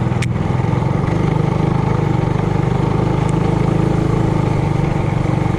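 Trailmaster Hurricane 200X mini bike's single-cylinder four-stroke engine running at a steady speed while riding, with a sharp click about a quarter second in.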